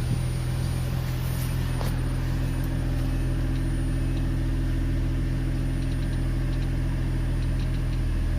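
Ford Mustang engine idling steadily with its fuel rail pressure sensor unplugged. With the sensor connected the engine had stalled, which points to a faulty fuel rail pressure sensor.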